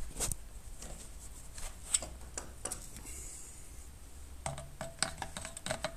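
Light clicks, taps and rubbing of hands working new fuel line down into a strimmer's plastic fuel tank, with a quick run of clicks near the end.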